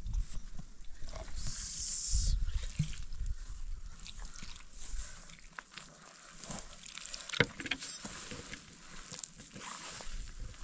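Water poured from a plastic jug into a metal pot of flour, a short splashing hiss about two seconds in, then hands kneading and squeezing the wet dough in the pot, small irregular squelches and rustles. A single sharp knock about seven seconds in.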